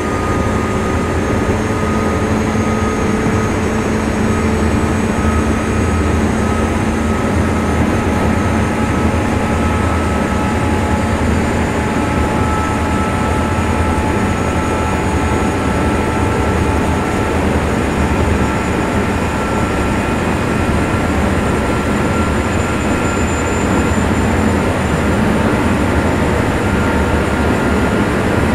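JR 201 series electric train running at speed: a steady rumble of wheels on rail under a high, jet-like whine from its armature-chopper traction equipment, the whine edging slowly up in pitch.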